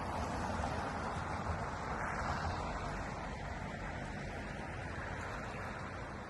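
Steady rushing noise of river water, with a low wind rumble on the microphone.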